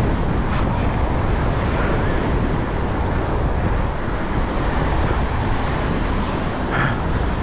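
Wind buffeting the microphone with a steady low rumble, over the wash of surf breaking on the beach.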